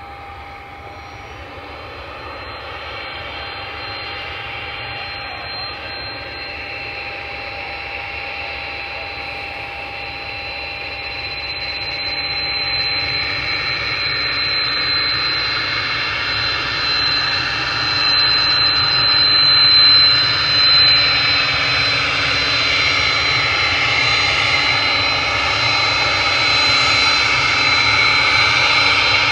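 Twin Pratt & Whitney Canada JT15D turbofans of a Hawker 400XP business jet running at taxi power, with a steady high whine over the engine noise. The sound grows steadily louder as the jet approaches.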